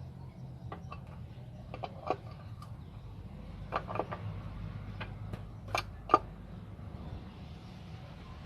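Scattered clicks and taps of a wrench tightening the bolts of a truck's engine fan, the two loudest close together a little after the middle, over a steady low hum.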